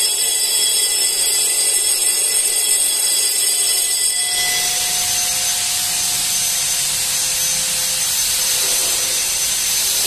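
Building fire alarm bell ringing continuously as a loud, dense, steady ringing; about four seconds in its tone shifts, with a steady mid-pitched tone coming in.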